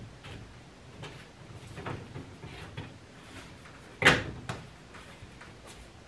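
Metal filter access panel on a forced-air gas furnace being handled and closed: light taps and scrapes, then a loud knock about four seconds in and a smaller one half a second later.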